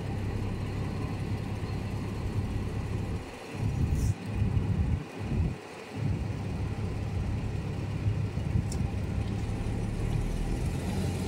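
A vehicle engine idling: a steady low hum that briefly drops away a few times around the middle.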